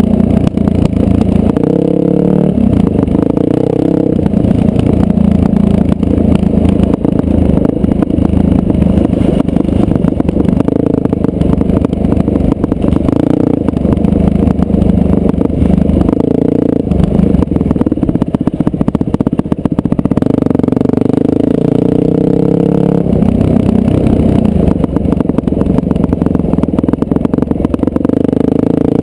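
Dirt bike engine running hard under the rider, its pitch climbing and dropping again and again as the throttle is worked and the gears change.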